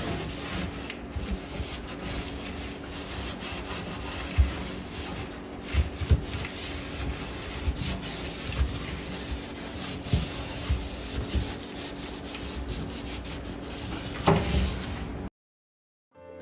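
Steady scrubbing by hand, a pad or cloth rubbing back and forth over a hard surface, with scattered light knocks; it cuts off abruptly about 15 seconds in.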